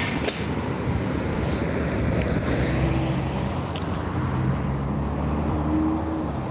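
A pickup truck driving past on the road, a steady low engine and tyre rumble.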